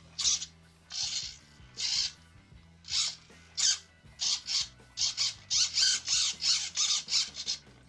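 RC steering servo whirring in short bursts as it swings the steering back and forth under radio control, a few spaced strokes at first and then quick back-and-forth movements in the second half.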